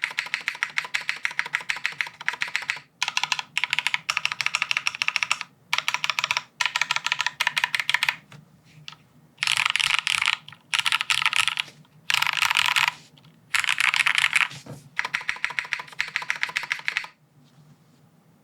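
Typing on a plateless, sandwich-mounted Teahouse Cinque mechanical keyboard with lubed Cherry MX Black linear switches and GMK doubleshot keycaps. The typing comes in bursts with short pauses, including several stretches of very rapid key presses, and stops about a second before the end.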